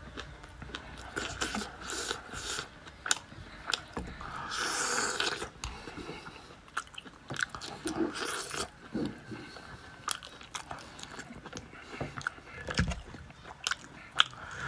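A person biting and chewing food close to the microphone: many short, sharp cracks, with a denser run of crunching noise about five seconds in.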